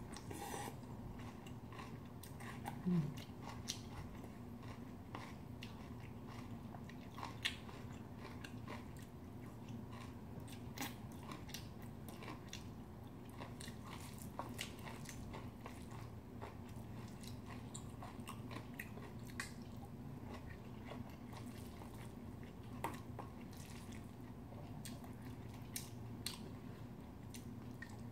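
Close-miked chewing and mouth sounds of a woman eating bibimbap (rice mixed with sautéed vegetables) by the spoonful, with many small scattered clicks from mouth and spoon against the stainless steel bowl. A faint steady low hum runs underneath.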